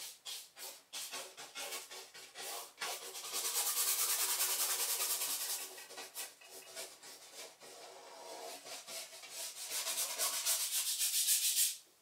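Bristle paintbrush scrubbing paint onto a stretched canvas. It starts with short, quick strokes, then scrubs continuously about three and a half seconds in and again near the end, and stops abruptly.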